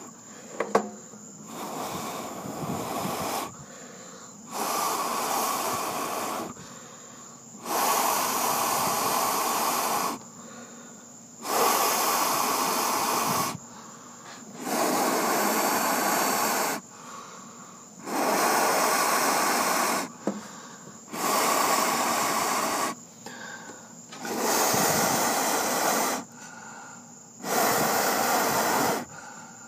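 A person blowing in long, hard breaths onto glowing embers to fan them into flame: about nine long blows, one every three seconds or so, with a pause for breath between each.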